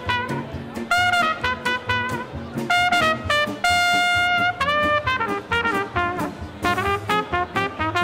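Small jazz band playing a lively tune led by trumpet over a steady beat, with one long held note about halfway through.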